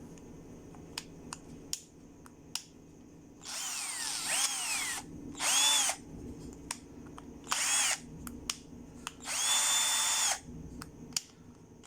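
Mitsushi 12 V cordless drill driver's motor run in four short bursts, its whine rising as the trigger is squeezed and falling away as it is released; the last burst is the longest and holds steady. A few sharp clicks come before the first burst.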